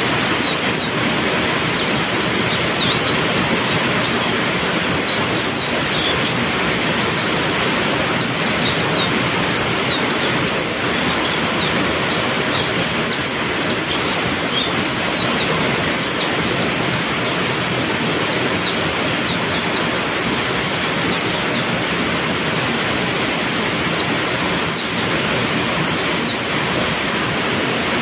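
Heavy rain falling steadily, with small songbirds giving quick high chirps and short twittering phrases over it. The chirping thins out a little past halfway, then picks up again.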